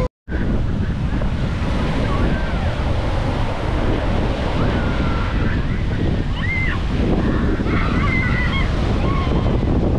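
Surf breaking on a sandy beach with strong wind rumble on the microphone. The sound cuts out for a moment right at the start. A few faint high children's voices call out in the second half.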